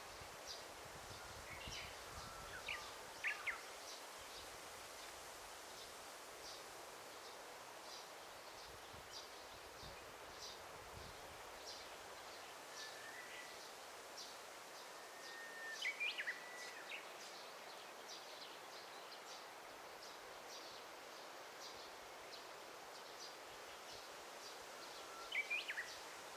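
Daytime forest ambience: a soft steady hiss under a run of short high chirps repeated about once or twice a second, with louder bird calls of quick sweeping notes about three seconds in, in the middle, and near the end.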